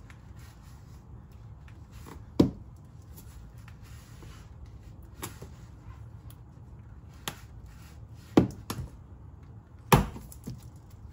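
Scattered sharp clicks and knocks, about six of them, as a tool works at a plastic push-in retaining clip on a car's underbody splash shield.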